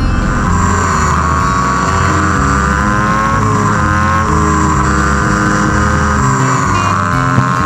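V-twin motorcycle engine and road noise played back sped up about five times, turning into a high whine whose pitch rises and falls with the throttle, dipping a few times.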